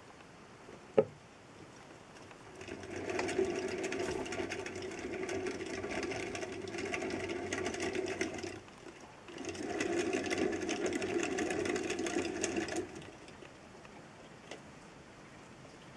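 Wooden drum-type running wheel spinning as a wood mouse runs in it: a fast, steady rattling whir in two runs of about six and three and a half seconds, with a short break between. A single sharp click about a second in.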